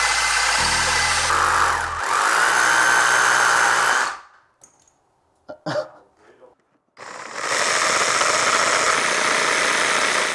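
Hammer drill boring into brickwork, in two runs of about four and three seconds with a short pause between.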